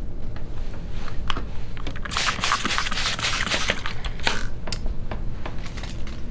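Thin clear plastic sheet crinkling and crackling as it is handled and spread over compost bedding, with a dense run of crackles from about two seconds in to past four seconds and scattered crackles before and after. A steady low rumble runs underneath.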